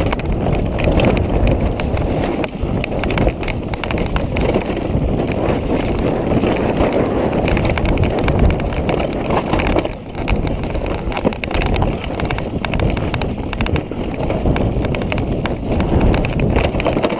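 Orbea Rallon mountain bike descending a rocky, leaf-strewn trail at speed: tyres crunching and bumping over rocks and dry leaves, chain and parts rattling in a dense, continuous clatter, with wind noise on the microphone.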